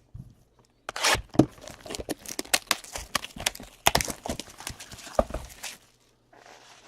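Hockey card boxes and packs being handled and opened: irregular crackling of plastic wrapping and sharp clicks and knocks of cardboard, stopping about a second before the end.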